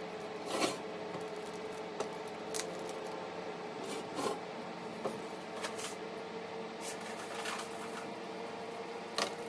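Soft rustles and light clicks of plastic-wrapped chocolates being set and nudged into place on a tray, about ten brief handling sounds spread out, over a steady low hum.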